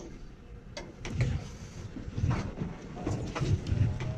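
Irregular clicks, knocks and handling noise of hands fitting a small plastic clamp.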